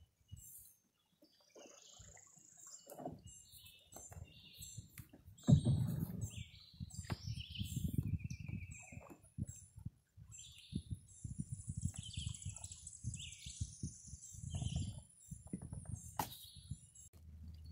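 Several wild birds chirping and calling from the wooded riverbank in short, scattered notes, with dull low thumps and rumble underneath, the loudest thump about five and a half seconds in.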